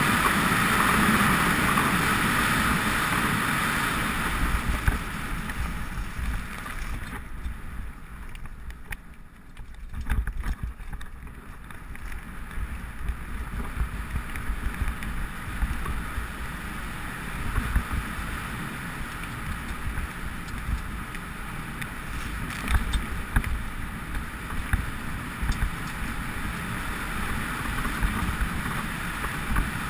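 Mountain bike riding along a dirt trail, heard from a camera mounted on the rider or bike: a steady rush of wind and tyre noise with frequent knocks and rattles as the bike goes over bumps. The rush drops away for a few seconds about eight seconds in, then builds again.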